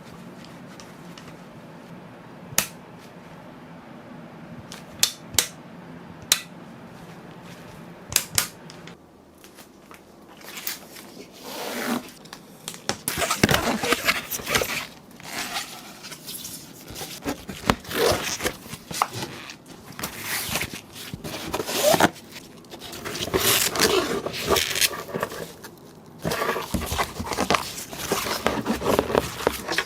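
Hands-on handling sounds from working on computer parts: a few sharp clicks early on, then from about a third of the way in, continuous irregular scraping and rustling.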